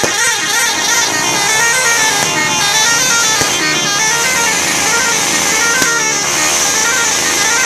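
Bus telolet horn, a multi-tone musical horn, playing a warbling tune that steps up and down without a break.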